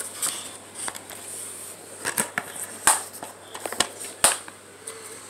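Plastic DVD cases being handled: scattered sharp clicks and taps of hard plastic, about a dozen over a few seconds.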